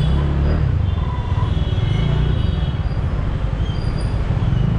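Street traffic: vehicle engines running close by, with one engine's pitch rising and falling about two seconds in.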